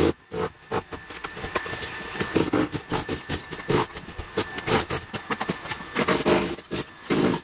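Electric demolition hammer chipping concrete out of the stair treads, running in short irregular bursts.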